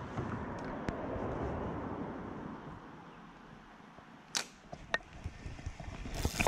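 A fishing rod swung into a cast, a brief sharp swish near the end, after two sharp clicks. A soft rushing noise fades out over the first few seconds.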